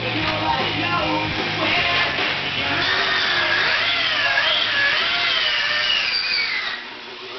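Rock background music with guitar, a wavering high lead line running through the middle and dropping away briefly near the end.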